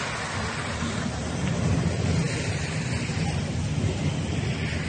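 Wind buffeting the microphone outdoors: a steady, uneven low rumble with a hiss above it.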